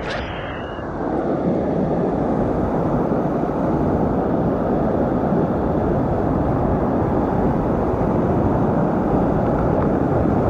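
Whitewater rapid rushing steadily, growing louder about a second in, with a couple of short clicks at the very start.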